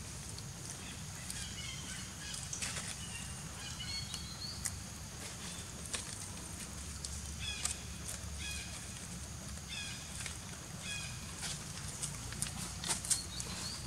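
Birds calling in short runs of high chirping notes that step down in pitch, repeated every few seconds, over a steady low background hum. Scattered light rustles and clicks of dry leaves, more frequent near the end.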